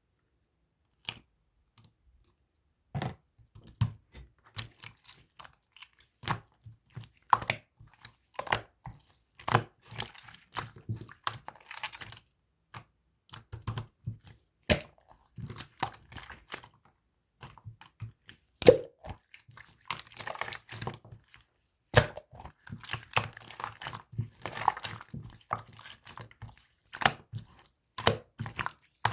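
Bubble-filled clear slime being squeezed and pressed by hand, giving irregular wet pops, clicks and crackles as the trapped air bursts, starting about a second in.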